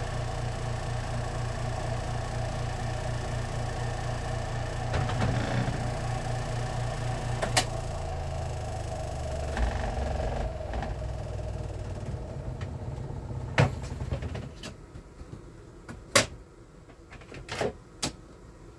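Spin-dryer motor of a compact twin-tub portable washing machine running with a steady hum, then slowing and winding down to a stop about two thirds of the way through. After that come a few sharp clicks and knocks as the spin tub's plastic cover is handled.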